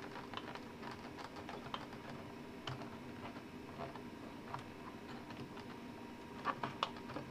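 Small clicks and light rattling of wire connectors being worked loose and unplugged inside an opened battery charger, with three sharper clicks close together near the end. A faint steady hum runs underneath.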